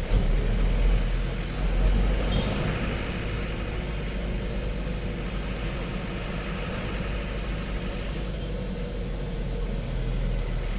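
Steady engine and road noise of a vehicle driving along, a continuous low rumble with tyre hiss.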